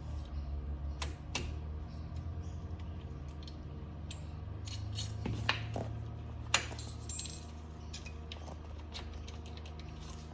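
Irregular metallic clinks and taps as a drill bit is knocked with a mallet to drive the pad-retaining pin out of a 4-piston Brembo brake caliper, with one sharp, louder clink about six and a half seconds in. A steady low hum is present throughout.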